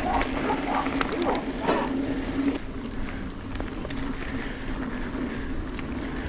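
Mountain bike rolling along a dirt singletrack: steady tyre and riding noise, with a few sharp clicks about a second in.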